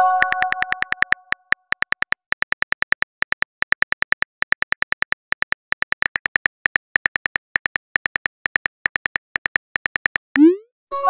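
Simulated phone-keyboard typing clicks from a texting-story app, rapid and even at several a second. They open under a fading chime chord and end about ten seconds in with a short rising whoosh as the message is sent, followed by another chime at the very end.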